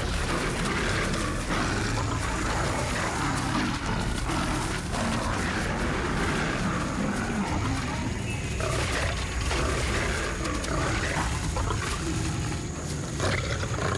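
Several male African lions fighting, growling and roaring over each other without a break as they grapple.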